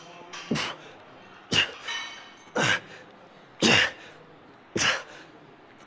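Sharp, forceful exhales like grunts, one with each rep of a standing barbell overhead press, five of them about a second apart.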